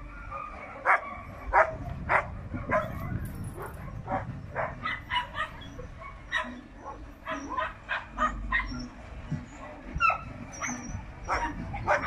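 Dogs barking in a quick, irregular string of sharp barks, two or three a second.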